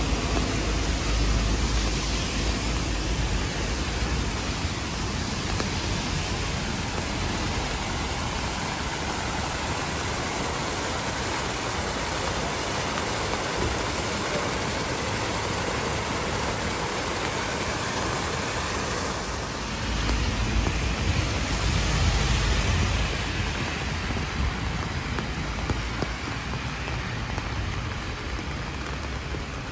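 A steady rush of water: a tiered fountain spilling into its basin, mixed with rain and the hiss of cars on the wet street. A low rumble of passing traffic comes at the start and again about twenty seconds in.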